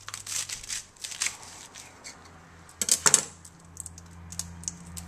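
A knife cutting through fresh celery on a countertop: crisp crunching snaps in the first second or so, a louder clack about three seconds in, then a few light crackles of the leaves being handled.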